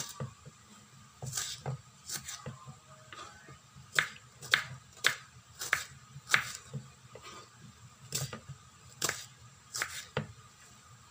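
Kitchen knife slicing a red onion on a wooden cutting board: about a dozen sharp taps of the blade hitting the board at an uneven pace of one to two a second.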